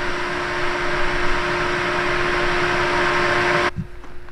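Grain bin fan running: a loud, steady rush of air with a constant hum. It cuts off abruptly near the end, leaving a quieter background with a faint knock or two.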